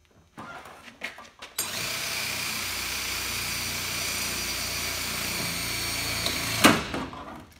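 Cordless drill driving a hole saw through a plastic cup holder console: a steady whirring cut that starts about a second and a half in and runs for about five seconds, ending with a sharp knock as the drill stops.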